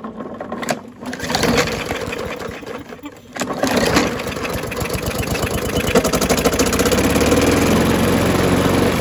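Briggs & Stratton 125cc engine on a Murray push mower being pull-started. It catches, dips about three seconds in, then picks up and runs steadily while the mower shakes: the blade is bent, leaving it badly out of balance.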